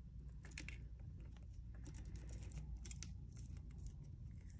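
Faint scattered small clicks and rustling from hands twisting wires together in plastic twist-on wire connectors under a ceiling fan's switch housing.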